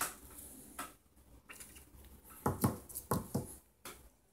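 Handling noise from small phone parts: light clicks, taps and rustles, with a cluster of sharper knocks in quick succession a little past halfway.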